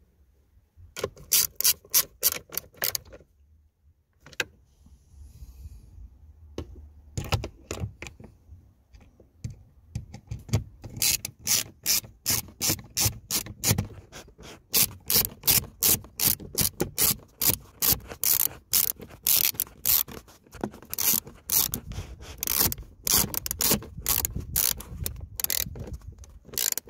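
Socket ratchet clicking in quick runs as it tightens the screws that hold an instrument cluster in the dash: a short run about a second in, another around seven seconds, then almost continuous clicking through the second half.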